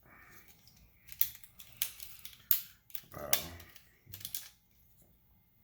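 Sharp plastic clicks and rattles of a PS4 controller's parts being pried loose and handled, with several separate clicks spread through.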